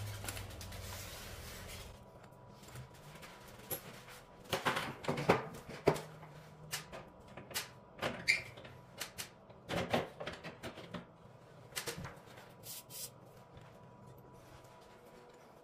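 Hard plastic parts of a ceiling-mounted cassette air conditioner clacking and knocking as they are handled and taken apart, in scattered clusters of clicks with a short squeak about eight seconds in. A low hum fades out over the first two seconds.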